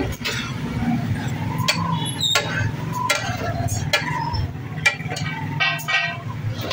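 Metal spatula clanking and scraping on a large flat iron tawa at irregular intervals as boneless chicken is stirred in bubbling oil. A low steady hum runs underneath.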